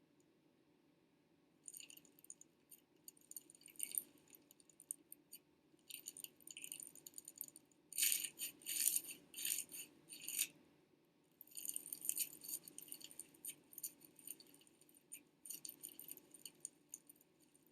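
Slime being poked and squeezed by hand, giving irregular clusters of crisp crackling clicks that start about two seconds in and are loudest about halfway through.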